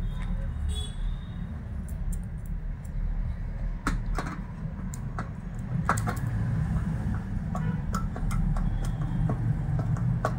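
Hand screwdriver driving in the screws that hold an HP LCD monitor's power-supply board to its sheet-metal chassis. It makes a few scattered sharp metallic clicks, the clearest about four and six seconds in, over a steady low rumble.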